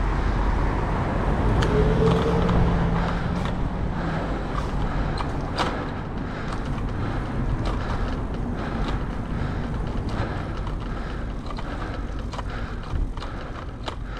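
Wind and road noise on a bicycle-mounted camera's microphone while riding in traffic, with a motor vehicle's engine passing about two seconds in and scattered clicks and rattles throughout.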